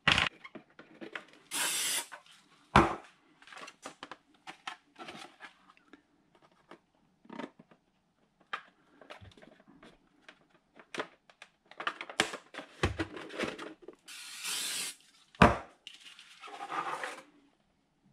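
Hard 3D-printed plastic fuselage parts handled and fitted together on a cardboard-covered workbench: scattered knocks and clicks of plastic against plastic and the bench, with a few short scraping rustles, one louder knock about three seconds in and another near the middle of the last third.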